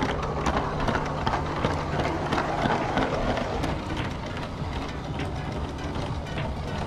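Motorized LEGO train running on plastic LEGO track: a steady electric-motor hum with frequent sharp clicks of the wheels going over the track joints, heard close up from the moving train.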